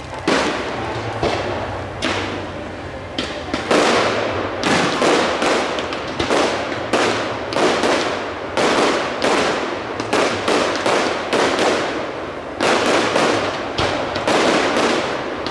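Aerial firework shells bursting one after another, each bang trailing away. The bangs are spaced out for the first few seconds, then come in a steady barrage of about two a second.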